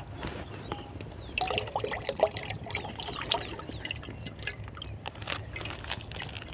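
A plastic pouch of cooking oil crinkling as it is snipped open with a knife, then the oil pouring in a thin trickling stream into oil in a metal karahi. A wood fire under the pan crackles with scattered sharp clicks.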